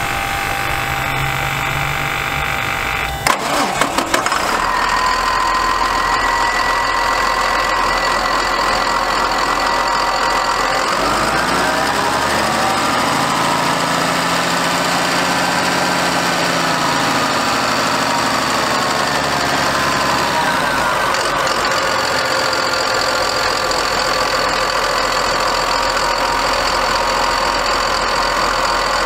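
Cummins ISB 5.9L inline-six turbo diesel cranked on the starter for about three seconds, catching with a few sharp knocks and settling into idle. It is revved up at about 11 seconds, held, and let back down to idle at about 20 seconds.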